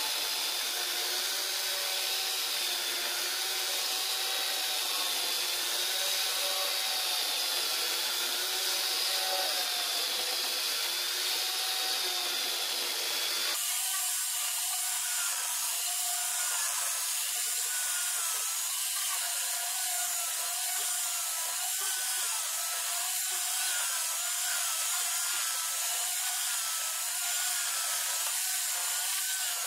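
Ryu angle grinder converted to a mini chainsaw, running under load as the chain cuts through a guava log, its whine wavering as it bites. About halfway through, the audio jumps to double speed and the whine rises to roughly twice the pitch.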